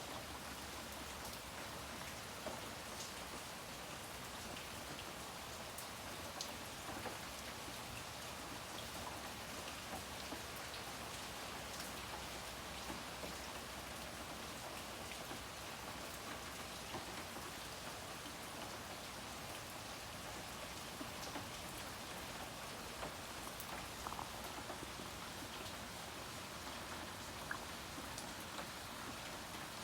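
Steady rain falling on standing water: an even hiss with scattered louder drop splashes.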